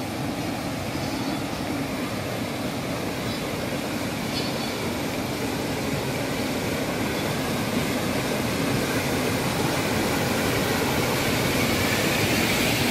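Muddy floodwater from a rain-swollen hill stream rushing over a washed-out road and rocks: a steady, even rush that grows gradually louder.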